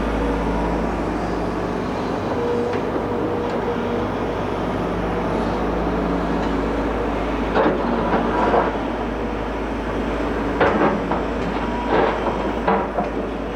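Hidromek 220 LC excavator's diesel engine running steadily with a constant hum. Several short, louder bursts of noise come in the second half.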